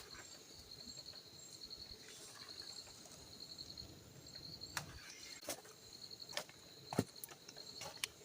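Insects chirping in steady pulsed trills. In the second half a handful of sharp clicks or knocks stand out, the loudest about seven seconds in.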